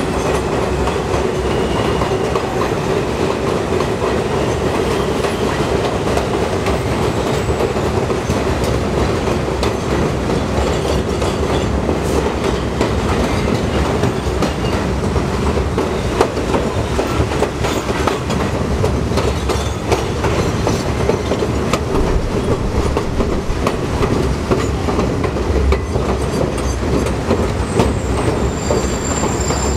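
R42 New York City subway train running slowly on elevated track, with a steady rumble and wheels clicking irregularly over rail joints. A thin, high wheel squeal starts near the end.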